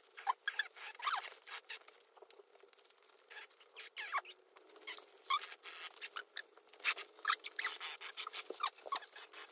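Stiff plastic dog raincoat crinkling and rustling in many small bursts as it is pulled on over a small dog, with short squeaks among the rustles.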